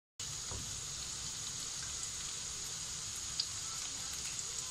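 Vegetable manchurian balls deep-frying in hot oil in a kadai: a steady sizzle.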